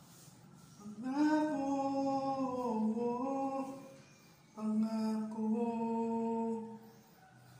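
A single voice singing unaccompanied: two long held notes, the first sliding downward partway through, the second steadier.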